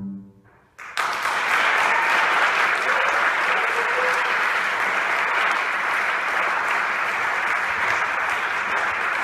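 The last bowed double bass note dies away, and about a second later an audience breaks into steady applause.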